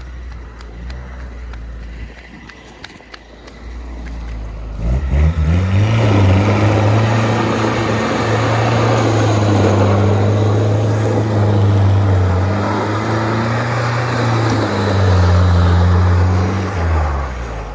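GAZ-69A engine, running on a freshly replaced crankshaft, is held at high revs for about twelve seconds as the jeep spins doughnuts, with tyres scrabbling over loose grit on concrete. Before that there is only a low rumble; the revs drop away just before the end.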